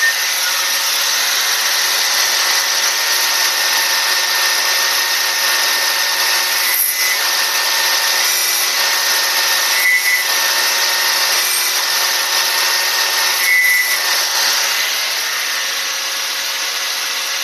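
Powered piston ring grinder running, its wheel grinding the end of a 5.3 LS top piston ring to file the ring gap. It makes a steady hissing grind that dips briefly three times and eases a little near the end.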